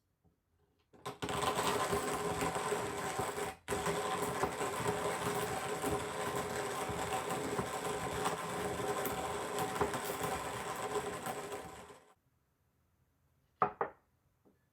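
Electric coffee grinder running as it grinds beans: a steady gritty whir with a constant motor tone. It starts about a second in, stops for an instant, then runs on for about eight seconds before cutting off. A short clink of a cup or utensil follows near the end.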